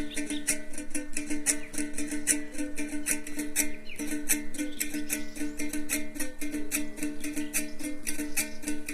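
Background music on a plucked string instrument, picking quick, evenly repeated notes.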